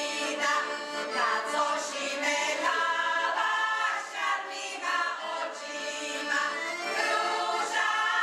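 Background music of a choir singing.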